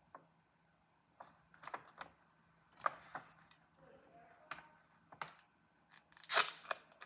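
Paper being handled during a craft: scattered taps, clicks and short rustles, with a longer, louder rustle about six seconds in.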